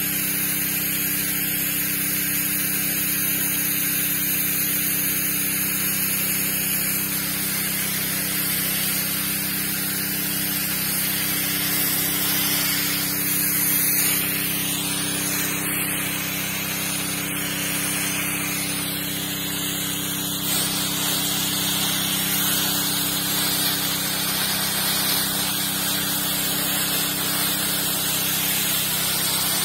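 Strong jet of water from a hose spraying onto dry ploughed soil, a steady hiss, over a steady low hum.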